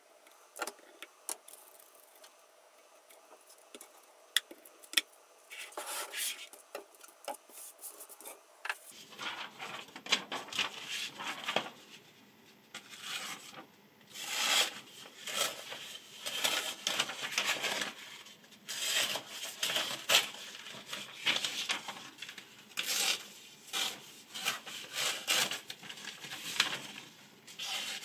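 Short rubbing, scraping strokes of a kitchen knife blade. A few scattered clicks come first, then from about nine seconds in a dense run of strokes, several a second.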